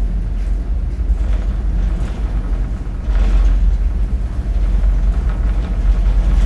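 Loose metal fittings on a car ferry rattling over the steady low rumble of the ship's engines, the rattling swelling louder about three seconds in.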